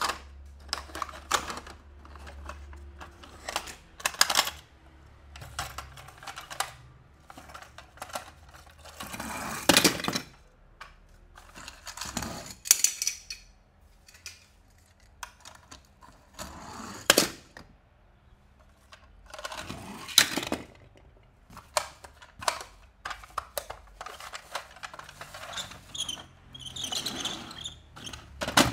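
Toy race cars and their plastic packaging being handled during an unboxing: irregular sharp clicks and taps of hard plastic, with a few longer scraping sounds and one squeaky scrape near the end.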